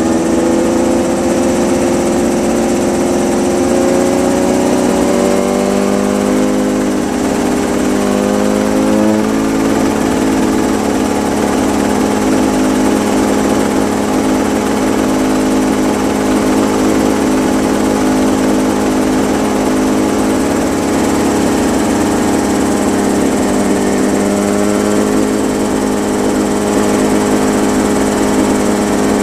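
Mosquito ultralight helicopter's engine running on the ground. Its speed shifts a little over the first ten seconds or so, then holds steady.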